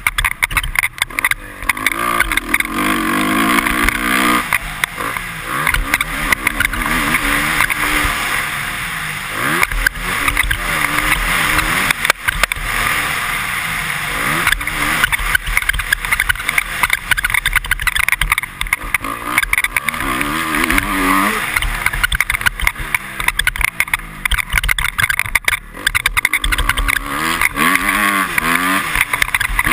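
Honda CRF250R's single-cylinder four-stroke engine revving up and falling back again and again as the bike is ridden hard round a motocross track, heard from on board over a steady rushing noise.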